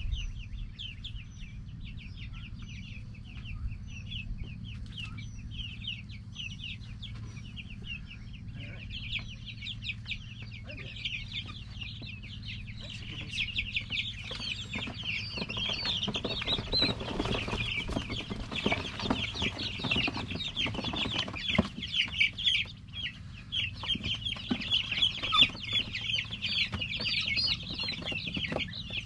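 A flock of young chicks peeping continuously, many short falling cheeps overlapping, growing denser and louder about halfway through. In the middle there is a stretch of rustling and knocks over the peeping.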